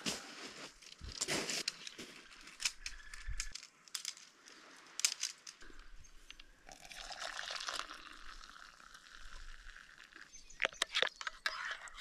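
Things being handled up close: scattered clicks, crinkles and rustles, with a steady hiss from about seven to ten seconds in.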